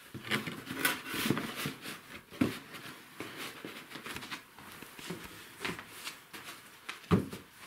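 Paper booklets rustling and being set down with soft slaps on an oilcloth-covered table as they are sorted and stacked, in irregular bursts with a few sharper knocks.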